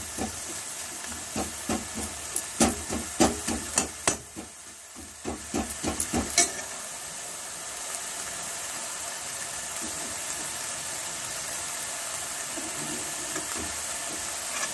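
Steel ladle stirring moringa leaves and urad dal badi in a hot kadai, knocking and scraping against the pan in quick irregular strokes for the first six seconds or so. After that the stirring stops and only the steady sizzle of the leaves frying is left.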